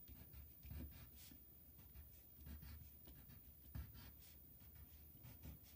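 Faint scratching of a colored pencil drawing short, pointed strokes on construction paper.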